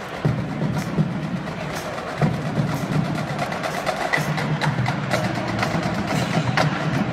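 Marching band drumline playing a percussion-only passage: tenor drums and bass drums struck in a fast pattern, with many sharp wooden stick clicks.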